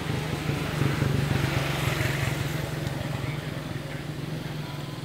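A steady low engine hum, slightly louder for a second or two about a second in.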